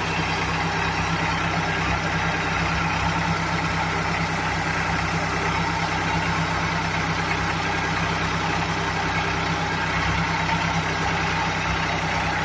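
Farm tractor engine running steadily, with an even, unchanging note.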